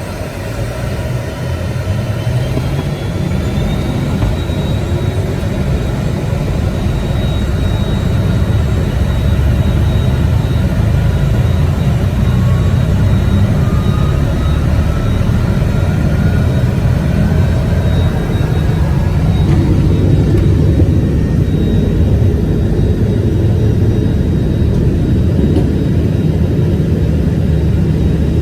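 Learjet 60XR's twin turbofan engines heard from inside the cabin, growing louder over the first several seconds with whining tones gliding upward, then a steady loud rumble: power coming up for takeoff.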